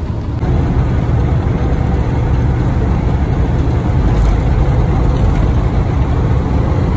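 Semi truck's diesel engine and road noise heard from inside the cab while cruising on the highway: a steady low rumble that gets a little louder about half a second in.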